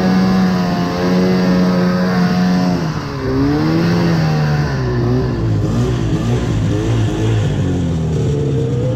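Vintage two-stroke snowmobile engine running under way. Its pitch dips briefly as the throttle eases about three seconds in, settles lower from about five seconds, then climbs again near the end.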